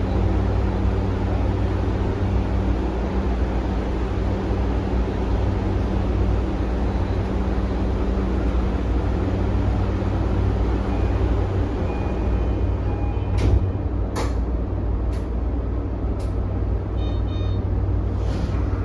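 Toei 5500-series electric train running on the rails: a steady rumble of wheels and running gear, with a low steady hum that fades out about halfway through. A string of sharp clicks comes in the last few seconds.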